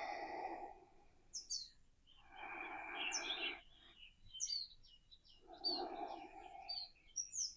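Small birds chirping repeatedly in the background, with three soft breaths from a person inhaling and exhaling through a yoga chest lift, each about a second long and roughly three seconds apart.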